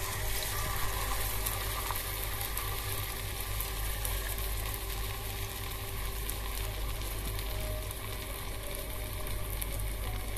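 Whole rohu fish, coated in a turmeric, chilli and ginger-garlic paste, sizzling and crackling steadily in hot mustard oil in a frying pan, just laid in to fry its first side. A low steady hum runs underneath.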